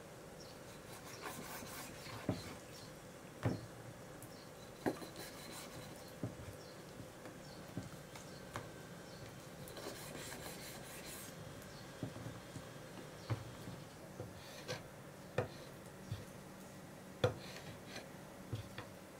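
Kitchen knife slicing raw chicken thigh on a wooden cutting board: scraping strokes as the blade draws through skin and meat, with irregular knocks of the blade against the board.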